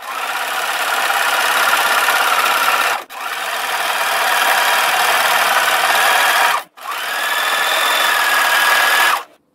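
Electric domestic sewing machine stitching a three-point zigzag hem on cotton jersey. It runs in three long runs with a faint motor whine; each run picks up speed at the start and stops sharply, with short pauses about three and about seven seconds in.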